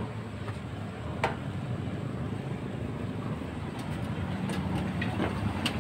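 A motor vehicle's engine running, a steady low rumble that grows slowly louder toward the end, with a couple of sharp clicks.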